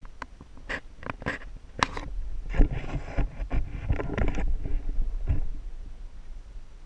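Jeep jolting over rough off-road ground: a run of knocks, clunks and rattles over a steady low rumble, busiest in the middle and easing off over the last second or so.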